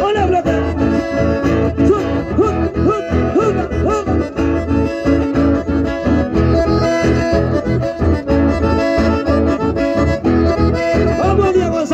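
Live folk band: two accordions playing the melody over strummed acoustic guitars, with a steady rhythm.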